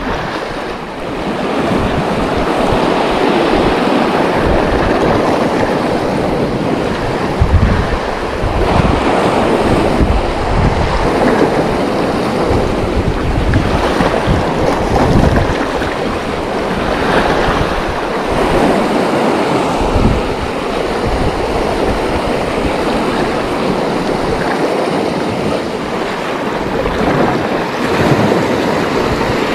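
Sea surf washing and breaking over shore rocks in a steady rush, with wind buffeting the microphone in gusts.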